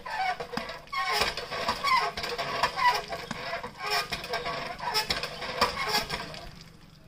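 Hand pump handle being worked up and down by an elephant's trunk, giving a squeal and a clank on each stroke, repeated about once a second. The strokes stop near the end.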